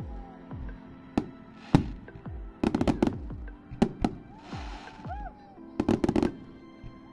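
Fireworks going off in a display: a series of sharp bangs and crackling clusters, with one hissing burst about halfway through. Music plays steadily underneath.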